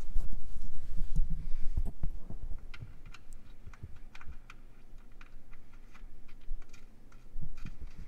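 Handling rumble and rustle for about the first two seconds, then a string of faint, irregular light clicks as a steel bolt is turned by hand into a freshly threaded hole in a Jeep Wrangler TJ's steel frame.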